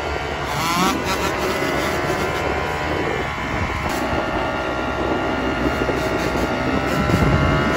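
Dirt bike engine held at steady revs, with a brief rise in pitch about a second in.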